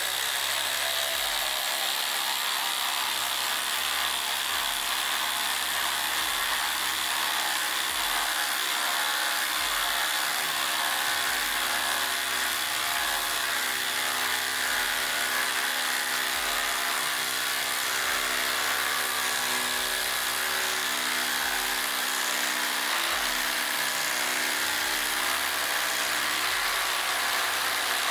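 Cordless impact drivers, a Flex FX1371 and a DeWalt DCF887, hammering steadily and without a break as they drive 10-inch by 1/2-inch lag screws into stacked OSB subfloor under heavy load.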